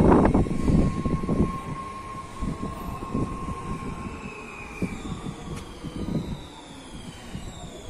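A train running past close by, loud at first and fading over the first couple of seconds, with a steady whine that dies away. A fainter rush follows, with slowly falling high tones near the end.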